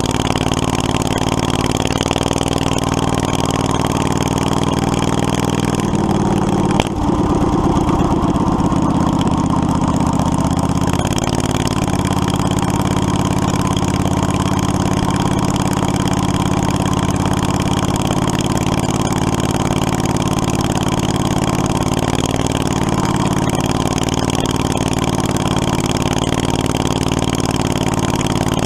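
Predator 670cc V-twin engine of a Yerf Dog 3203 go-kart running steadily. About seven seconds in there is a sharp knock, and the engine note falls for a few seconds before it steadies again.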